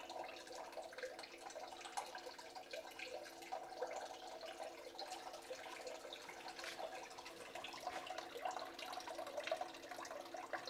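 Small submersible pump running with a steady hum, feeding water into a Blue Bowl concentrator with a constant trickle and splash. Water also drips from a leaking hose connection.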